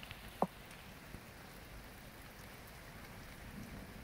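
Steady rain falling during a night thunderstorm, with scattered drop ticks and one sharp click about half a second in.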